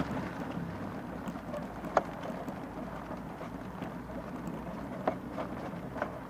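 Steady wind and movement noise on an action camera's microphone, with sharp clicks about two seconds in and again around five and six seconds.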